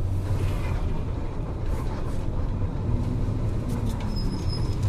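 Volkswagen 17.230 OD bus engine running, a steady low drone.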